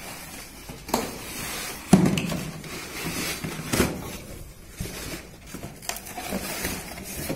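Handling noise as a new gas stove is unpacked: several sharp knocks, the loudest about two seconds in, among rustling and scraping of packaging.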